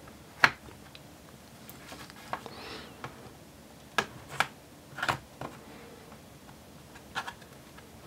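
Clicks and snaps from an HP Pavilion x360 laptop's plastic base panel being pried with a plastic pry tool, as the clips holding the panel pop free. It is a string of about eight sharp, separate clicks, the loudest about half a second in.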